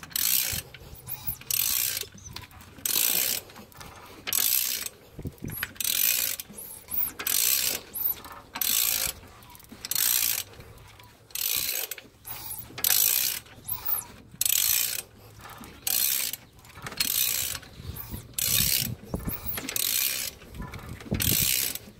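Socket ratchet turning the Chrysler 2.7 V6's crankshaft over by hand. Each return stroke gives a short burst of ratchet clicks, a little over one a second. The engine turns over easily, a sign that no piston is hitting a valve.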